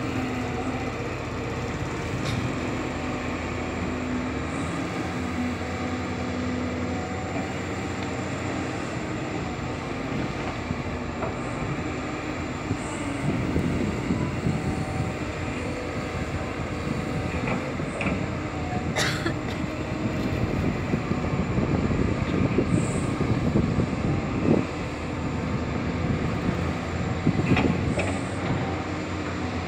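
Doosan hydraulic crawler excavator's diesel engine and hydraulics working steadily as it moves soil and rock on a spoil pile. The rumble grows louder and rougher from about halfway through, with one sharp click near two-thirds of the way.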